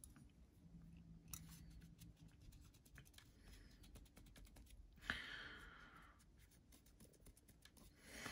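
Faint rubbing of a cloth wipe on the anodized titanium frame of a folding knife, with scattered small ticks and a louder rubbing stroke about five seconds in.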